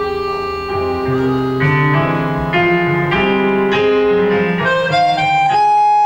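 Slow instrumental background music of held notes that change every second or so over a low sustained accompaniment, settling on one long higher note near the end.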